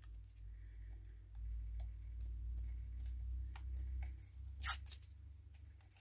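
Fingernails picking and peeling thin protective film off new Teflon mouse skates on the underside of a mouse: faint scratching and small clicks over a low handling rumble, with one sharper scratchy peel a little before the end.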